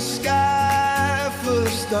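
Background music: a held, wavering melody over a steady beat.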